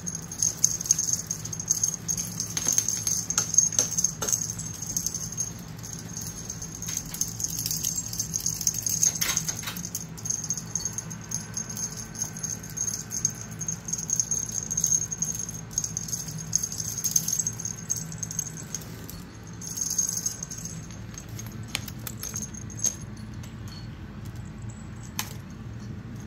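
Small bells on kittens' collars jingling continuously as the Himalayan kittens move about, thinning out near the end.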